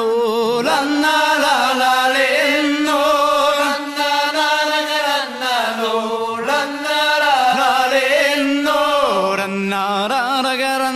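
Background music: a voice singing long, wavering held notes.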